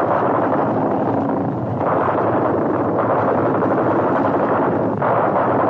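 Dubbed battle sound effects for an air raid: a loud, continuous roar of explosions and fire with no distinct single shots, its texture changing abruptly a few times with the cuts.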